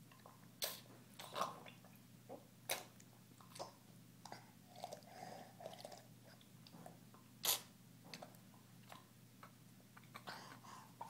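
A toddler sipping and slurping from a ceramic mug held to his mouth: small wet mouth noises and sharp clicks, a few at a time, the loudest about seven and a half seconds in.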